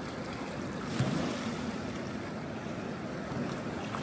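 Steady rushing outdoor noise of wind and water, with a single brief knock about a second in.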